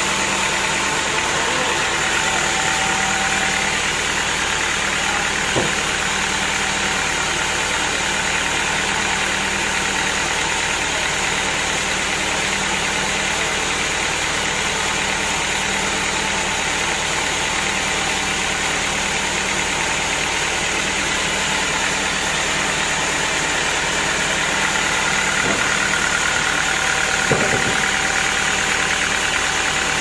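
Band sawmill running steadily with no cut under way: the machine's drive and blade give a constant mechanical noise with a few steady tones. A few faint knocks from the teak log being levered onto the carriage, around five seconds in and near the end.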